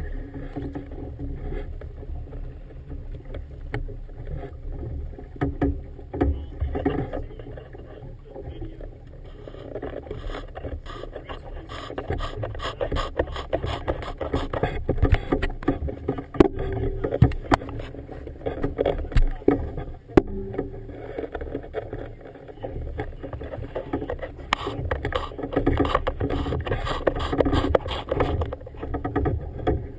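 Choppy harbor water slapping and splashing against a small boat's hull in irregular knocks, over a low wind rumble on the microphone.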